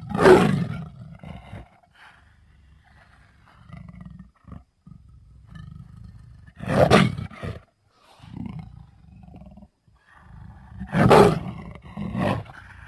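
Jaguar roaring: three loud, rough calls a few seconds apart, with low growling between them.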